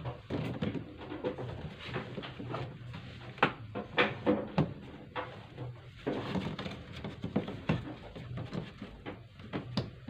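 Scattered clicks, knocks and light rattles of hands handling the sheet-metal and plastic rear cover panel of a twin-tub washing machine, over a low steady hum.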